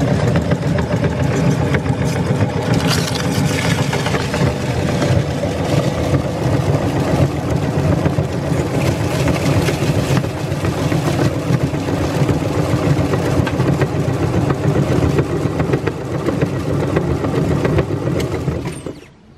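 Motor-driven meat grinder running steadily as it grinds crisp snack chips to crumbs, then stopping suddenly near the end.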